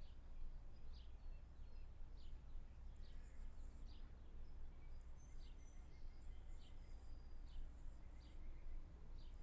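Birds chirping: one repeats a short falling chirp about once a second, with a few fainter high whistles between, over a steady low rumble.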